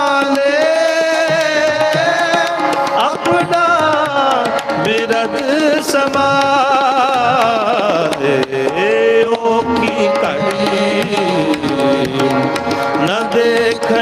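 Sikh Gurbani kirtan: a man singing long, wavering held notes, accompanied by harmonium, with tabla keeping the beat.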